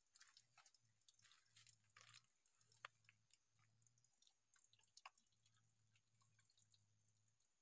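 Faint, irregular clicks and smacks of dogs eating rice from metal bowls, over a faint low hum that comes and goes.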